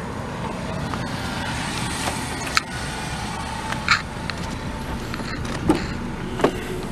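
A car idling close by, a steady low rumble, with a few sharp clicks and taps at the car's side.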